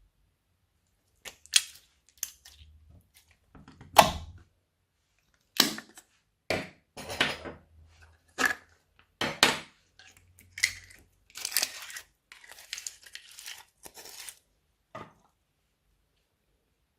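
Slime being pulled, stretched and squeezed by hand, making a run of short, irregular tearing crackles that stop about two seconds before the end.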